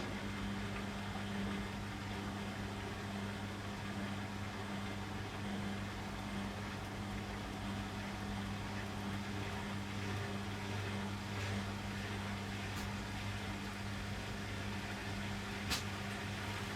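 Beko WM6255W washing machine running with a steady low hum, and two light clicks in the last few seconds.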